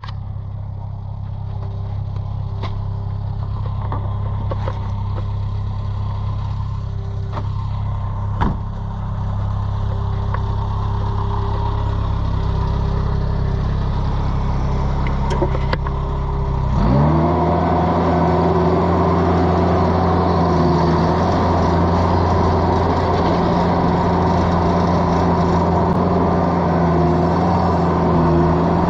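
Mini skid steer engine running steadily at low speed, with a few scattered clunks, then throttled up about two-thirds of the way through to a higher steady speed.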